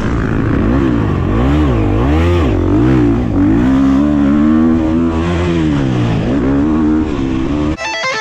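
Husqvarna motocross bike engine running hard on the track, its pitch rising and falling over and over as the throttle is worked through turns and straights. It cuts off suddenly near the end into electric guitar music.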